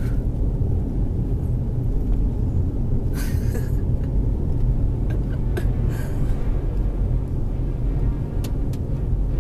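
Steady low road rumble inside a moving car's cabin, with a brief rustle about three seconds in and a few light clicks later on.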